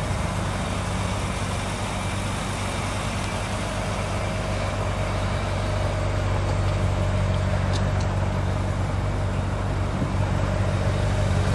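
Ferrari California's 4.3-litre V8 idling steadily, a low, even hum heard from around the rear of the car.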